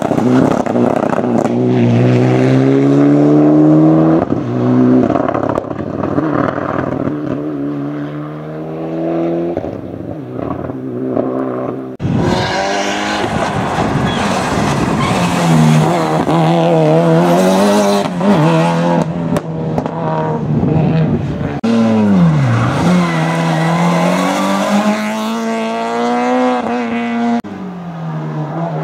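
Hillclimb race car engine accelerating hard, its pitch climbing and dropping back at each gear change. After a sudden cut about twelve seconds in, an engine revs up and down, dipping sharply once and climbing again.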